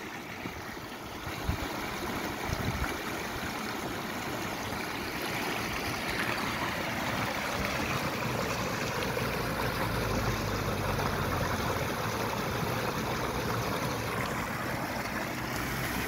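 Snowmelt water running over a small step in a stream: a steady splashing rush of water.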